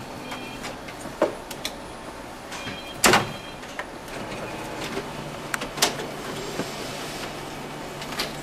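Office photocopier making a copy: short keypad beeps, a loud clunk about three seconds in, then the machine runs with a steady hum and occasional clicks.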